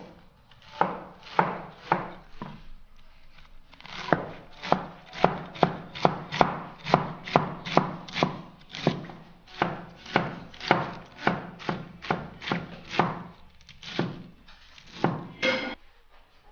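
Chinese cleaver shredding cabbage on a wooden cutting board: a run of sharp chops, about three a second, with a short pause a few seconds in.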